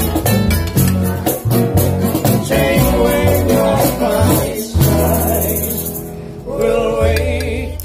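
Live acoustic band playing: a plucked upright double bass and a strummed acoustic guitar, with a woman singing into a microphone from about five seconds in.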